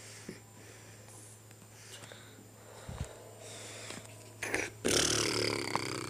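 A pet cockatoo flapping its wings on top of its wire cage: a loud whooshing rush that starts about four and a half seconds in, after a quiet stretch.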